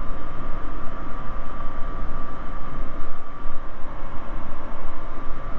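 Bristell light sport aircraft's engine and propeller droning steadily in flight, heard from inside the cockpit, with a faint constant whine over the low rumble.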